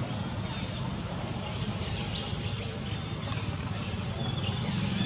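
Outdoor ambience: a steady low rumble, with faint short high-pitched chirps scattered over it.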